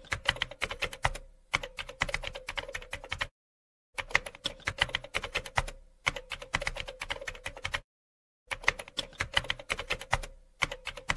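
Computer-keyboard typing sound effect: three runs of rapid key clicks, each lasting about three seconds and cut off by a short stretch of total silence, going with on-screen text typed out letter by letter.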